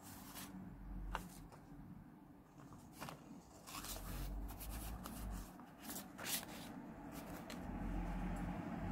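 Paper and stationery being handled: scattered rustles, taps and crinkles over a low rumble.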